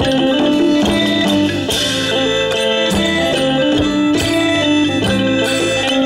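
Live Isan folk band playing an instrumental passage: plucked lutes carrying a repeating melody over drums and cymbal strokes.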